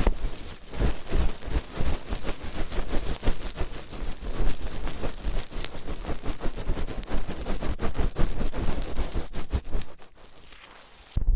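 Fast crackling rustle of hands rubbing and squeezing the ears of an ear-shaped ASMR microphone, falling quiet about ten seconds in.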